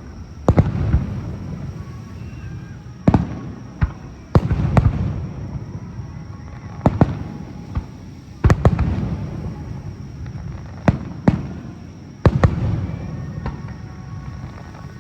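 Fireworks display: shells bursting with about ten sharp bangs spaced irregularly, each trailing off in a low rumbling echo.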